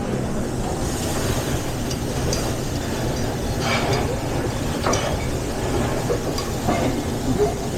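Busy restaurant kitchen line: a steady low mechanical noise, such as the extraction hoods, with a few short clinks and clatters of pans and utensils scattered through it.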